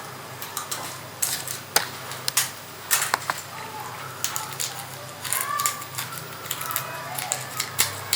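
Irregular sharp clicks and crinkles of hands handling small objects during a dry-needling treatment.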